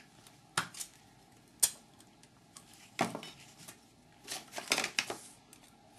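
Metal spring retaining clips on a Bosch HEI distributor being prised off by hand: scattered metallic clicks and scrapes, with one sharp click about a second and a half in and a short cluster of clinks near the end.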